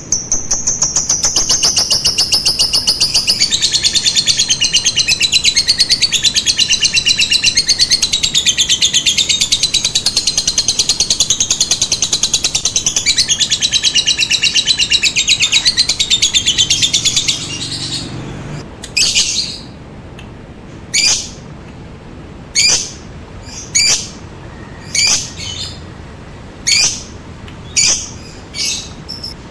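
Lovebird giving a long unbroken ngekek trill, a fast rattling chatter held for about seventeen seconds, then breaking into a string of short sharp chirps about once a second. This is a lure call for getting other lovebirds to answer.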